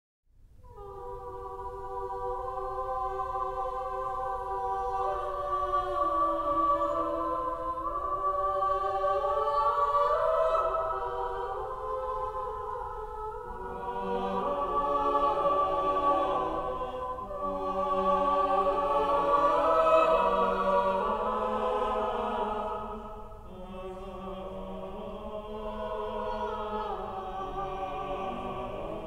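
Choral music: several voices singing slow, held chords, swelling in at the start. A lower part joins about fourteen seconds in.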